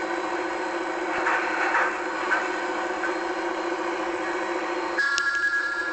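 A machine running steadily with an even mechanical hum, joined about five seconds in by a steady high-pitched tone.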